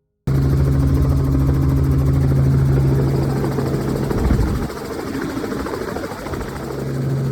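Helicopter running close by: a loud, steady low drone with rotor beat, starting abruptly just after the start. The drone drops back about four and a half seconds in and swells again near the end.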